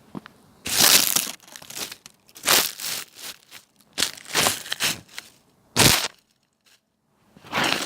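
Crunching and crackling: about six rough, uneven bursts of crushing noise, with a brief drop to dead silence shortly before the last one.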